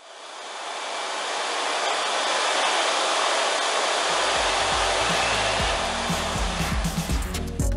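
Steady rushing of an electric appliance blowing air, fading in over the first couple of seconds. Background music with a bass beat comes in about halfway through.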